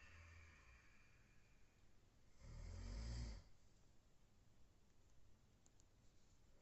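A person snoring in their sleep: a fading breath at the start, then one snore about two and a half seconds in lasting about a second, with quieter breathing after it.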